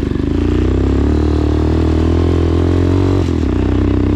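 Motorcycle engine pulling away and accelerating, its pitch climbing over the first three seconds. It dips briefly a little past three seconds in, then picks up again.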